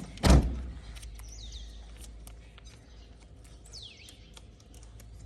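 A thump near the start, then a kitten eating, with faint, irregular clicks of its chewing. Two short high chirps falling in pitch come about a second in and near the middle.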